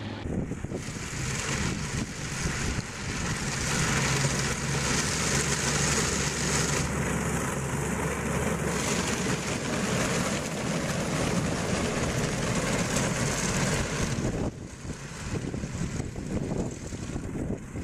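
Tucker Sno-Cat four-track snowcat driving over packed snow, its engine running steadily under load with the tracks rattling. It gets quieter for the last few seconds.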